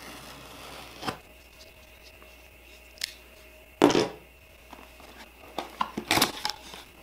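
A utility knife slicing through the wrapping of a cardboard box, followed by sharp knocks and rustles of cardboard and plastic as the box is handled and its inner box slid out of the sleeve. The loudest are about four seconds in and a cluster near the end.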